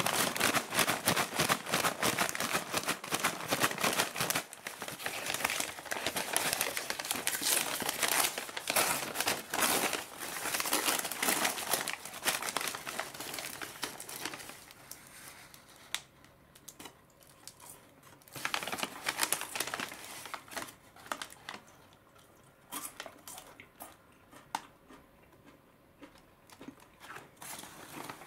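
Paper bag crinkling and rustling as hands open it out and fold it back around loose fries: dense and continuous for about the first half, then quieter with scattered short crinkles and one brief louder burst.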